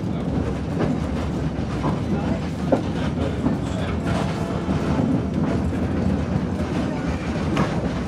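Heritage railway carriage running slowly on the track, heard from inside the carriage: a steady wheel-and-rail rumble with scattered clicks over the rails and a sharp clank nearly three seconds in.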